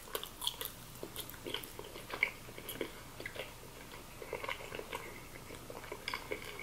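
Close-miked eating of mochi ice cream: quiet chewing with a run of small mouth clicks and smacks.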